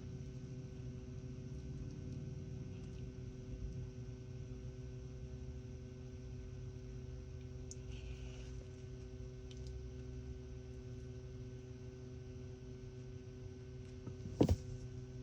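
A steady low hum made of several held tones, then one sharp, loud male sneeze about a second before the end.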